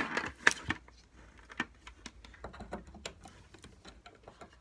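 Scattered clicks and taps of objects being handled during an unboxing, with a few sharper knocks in the first second and lighter clicks after.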